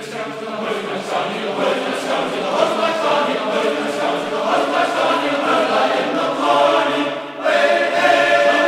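Choir singing as background music, with several voices holding long notes. It gets louder about seven and a half seconds in.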